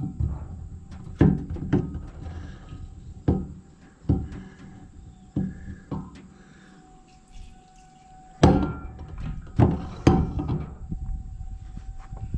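Irregular clunks and knocks of metal parts and containers being handled at a loader's hydraulic tank filler. The two loudest come about eight and a half and ten seconds in.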